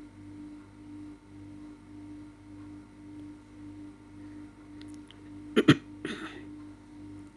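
A steady, faintly pulsing electrical hum, broken about five and a half seconds in by a person briefly clearing their throat: two sharp bursts, then a short breathy rasp.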